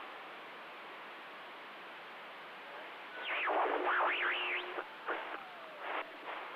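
CB radio receiver hissing with static between transmissions. About three seconds in, a warbling signal sweeps up and down in pitch over the hiss, followed by a couple of short bursts.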